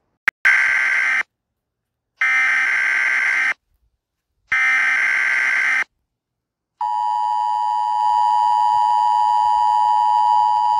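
NOAA Weather Radio emergency alert: three short bursts of screechy digital SAME header data, each about a second long with a gap between, then the long steady warning alert tone starting about seven seconds in. These are the signals that open a severe thunderstorm warning.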